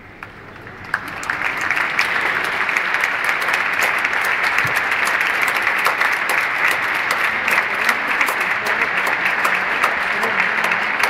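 Large concert-hall audience applauding: the clapping starts about a second in, swells to full strength within a second and holds steady.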